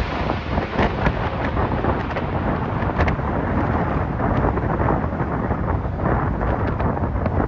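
Airbus A380's four jet engines rumbling and crackling as the airliner passes over on final approach, with storm wind on the microphone.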